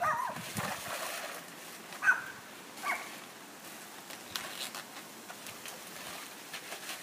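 A plastic bag of ice cubes crinkling as it is torn open and the ice tipped into a plastic garbage bin, with a few light clicks of cubes near the middle. Short high-pitched calls come at the very start and twice more around two and three seconds in.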